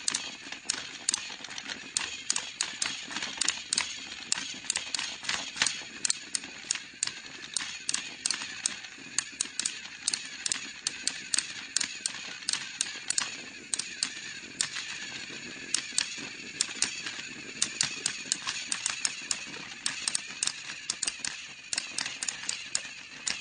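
Motorized toy trains running, with a steady high motor whine and rapid, uneven clicking from their wheels and gears.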